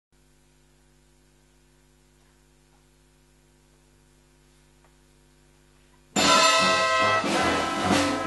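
Near silence with a faint steady hum, then about six seconds in a pit orchestra of brass, reeds and strings starts playing loudly all at once, the brass to the fore.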